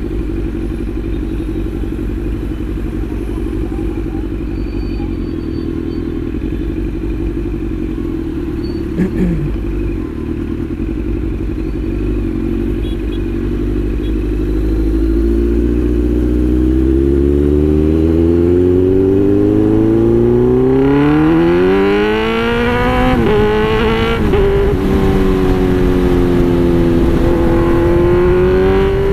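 Kawasaki Z900's inline-four engine running under way: a steady low note at first, then a long climb in pitch as the bike accelerates. The pitch dips briefly about three quarters of the way through, then holds a steady higher cruise.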